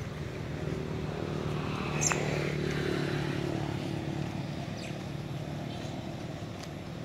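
Motor vehicle engine running steadily, swelling a little about two to three seconds in; a sharp click about two seconds in.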